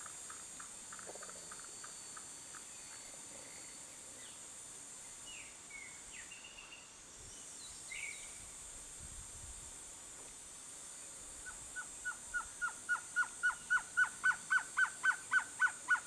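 Male blue-crowned trogon singing: a run of short, evenly repeated notes that fades out in the first couple of seconds. Near the end comes a longer series of about twenty notes, four or five a second, growing steadily louder.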